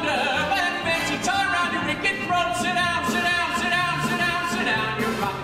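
Live show-tune performance: a male singer with orchestral accompaniment.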